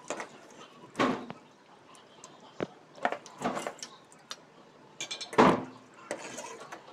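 Steel wire skimmer and ladle knocking and scraping against a large aluminium kadai while fried omapodi (sev) is lifted out of the hot oil: several sharp clanks, the loudest about five and a half seconds in.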